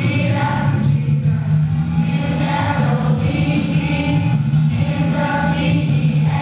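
A group of voices singing an upbeat song with instrumental backing, a children's action song.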